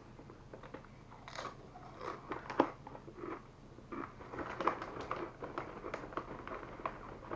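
Crunching and chewing of a ghost pepper tortilla chip close to the microphone: a run of irregular crisp crunches, the loudest about two and a half seconds in.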